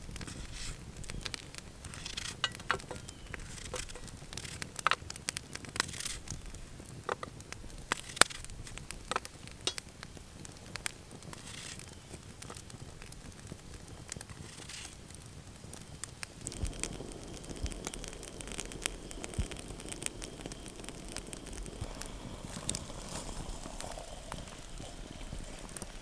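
A knife slicing through a crisp apple, heard as sharp crunchy snaps at irregular intervals, with the slices dropped into a steel frying pan. From about halfway through, a steady low rushing noise joins in.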